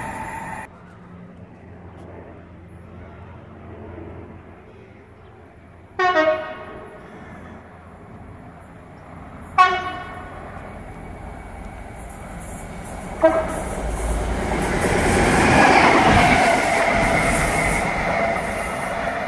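Diesel locomotive's horn sounding three short blasts a few seconds apart, then the locomotive growing louder as it approaches at speed through the station. Under a second in, the noise of the train that has just passed cuts off.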